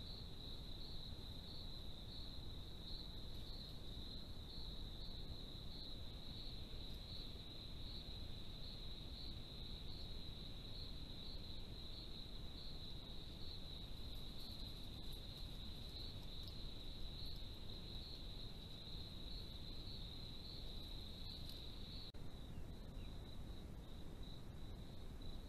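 Crickets chirping at night in a steady, high, pulsing chorus over a faint low hiss. The chorus drops in level near the end.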